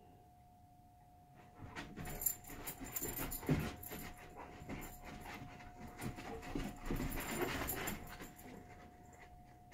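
Two Labrador retrievers, one yellow and one black, playing rough: dog vocal sounds and panting with scuffling and sharp clicks, starting about two seconds in and dying down near the end.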